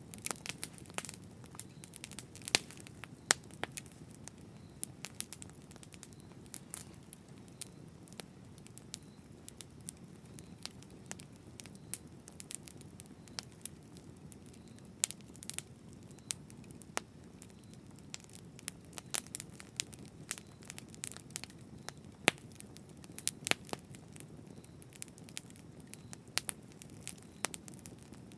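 Campfire burning, with irregular sharp crackles and pops from the wood over a soft steady low rush of the flames.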